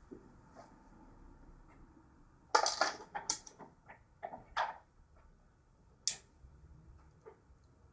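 Small sharp clicks and rattles of tools and parts being handled at a soldering workbench, a burst of them a few seconds in, then a few scattered ones.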